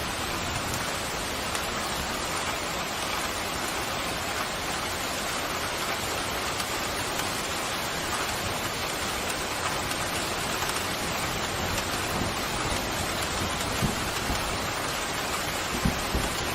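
Heavy rain pouring steadily. A couple of brief low thumps come near the end.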